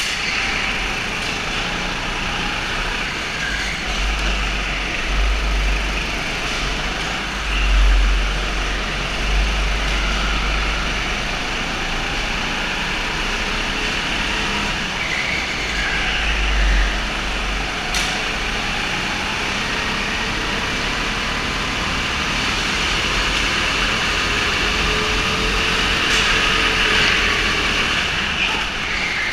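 Go-kart engines running continuously through a race, their pitch rising and falling as they accelerate and slow for corners, with a deep rumble swelling now and then.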